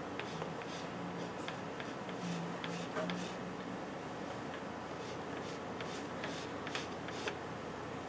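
Pastel stick making quick marks on drawing paper: short, irregular scratches and ticks, a few a second, stopping shortly before the end.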